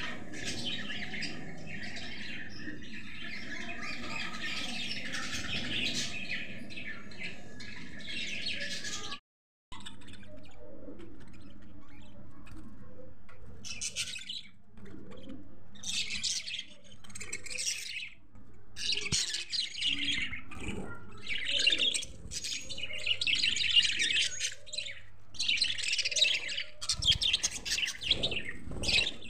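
Budgerigars chirping: a dense, continuous twitter for about nine seconds, a brief break, then chattering in short bursts.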